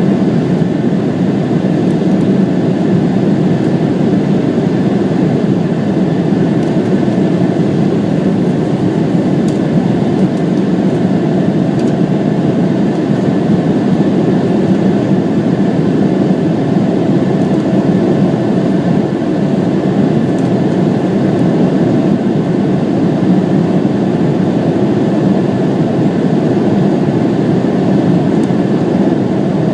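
Embraer 170 airliner's twin GE CF34-8E turbofan engines and airflow, a loud, unchanging deep rumble with a faint steady whine above it.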